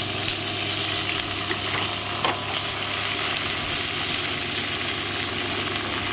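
Chopped onions sizzling steadily as they fry in hot oil with whole spices in a pan, set to cook until golden brown. A single brief tap of a utensil comes a little past two seconds in.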